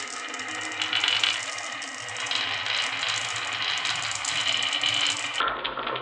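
Marbles rolling and clattering down a HABA wooden marble run: a continuous stream of rapid small clicks and rattles. The sound changes abruptly near the end.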